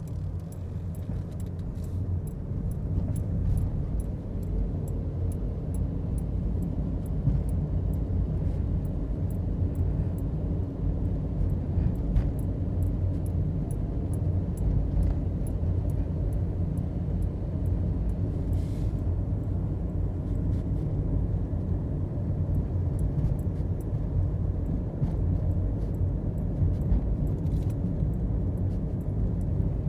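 A car on the move: steady low rumble of engine and road noise, with faint regular ticking.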